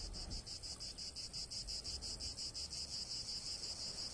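An insect chirping in a fast, even pulse of about eight short, high-pitched chirps a second.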